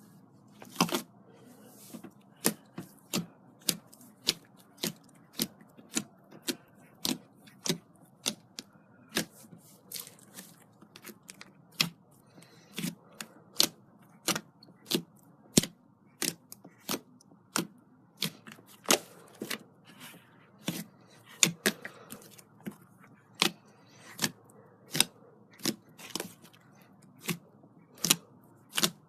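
Glitter slime being squeezed and poked by hand, giving a string of sharp clicks and pops, roughly one or two a second.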